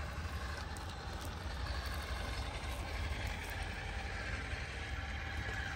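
Traxxas TRX-4 RC crawler's electric motor and gears whining steadily as it drives through shallow creek water, over a steady low rumble.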